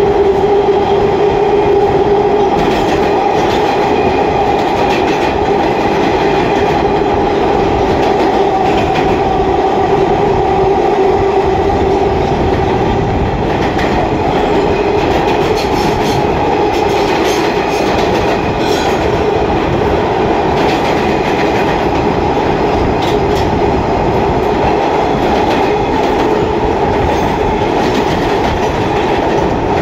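R160A subway car running at speed, heard from inside: a steady loud rumble of wheels on rail with scattered clicks and a steady tone over it that fades about halfway through.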